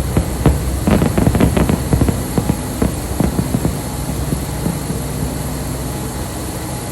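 Fireworks crackling and popping in a rapid cluster about a second in, then thinning to scattered pops, over a steady low rumble.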